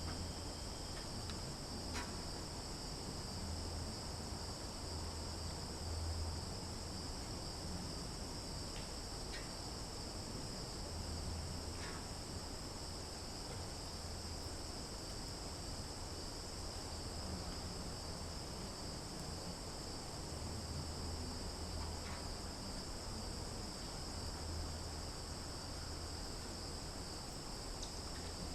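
Steady, unbroken chorus of summer insects (crickets and cicadas) in a forest, holding a high buzzing tone, with a few brief faint high chirps and a low rumble underneath.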